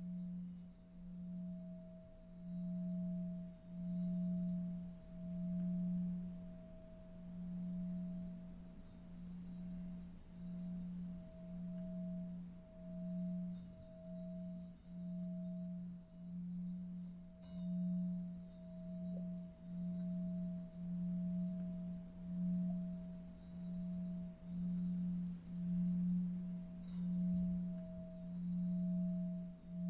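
A steady low humming tone that swells and fades about once a second, with a fainter higher tone held above it: a meditation drone under the pause in the guidance.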